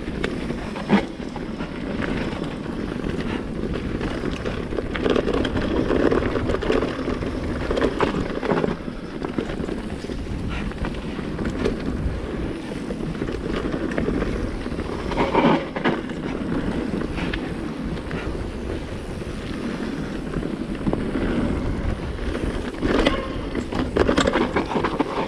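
Mountain bike descending a dirt and stony trail: a steady rumble of tyres over loose ground mixed with wind on the microphone, broken by sharp knocks and rattles as the bike hits stones and roots, loudest about 15 seconds in and near the end.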